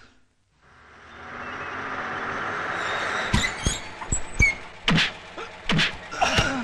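Street and traffic noise swelling up, then a quick run of sharp blows and thuds from about three seconds in: a man on the road being kicked and beaten.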